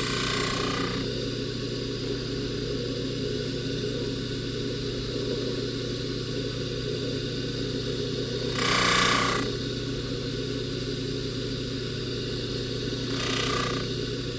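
Jeweler's polishing motor running with a steady hum. A louder rush comes about nine seconds in and a shorter one near the end.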